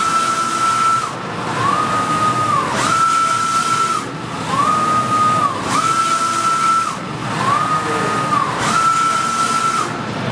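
Wide-format inkjet printer with Kyocera print heads printing: the carriage motor whines with each pass, gliding up in pitch, holding and gliding back down as the head sweeps across the media and reverses, about one pass every one and a half seconds. A steady hiss runs under it.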